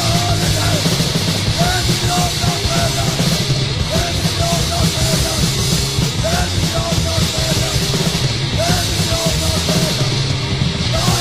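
Hardcore punk band playing a song: guitar, bass and drums at a steady, loud level, with a short high phrase repeating several times over the top.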